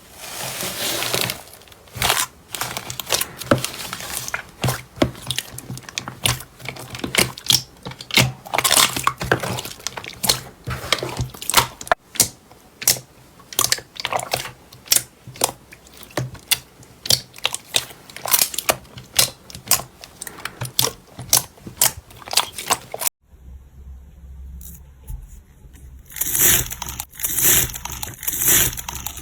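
Slime being pressed and worked by hand, giving rapid, irregular crackling and popping clicks. About 23 seconds in it cuts to a quiet stretch with a low hum, and the crackling starts again about three seconds later.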